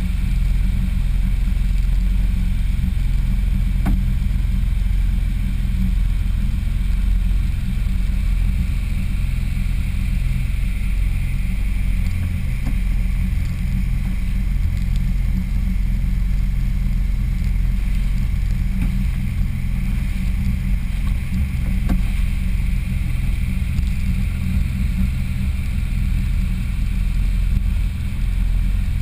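Jet ski running steadily with water rushing against its hull: a constant low rumble.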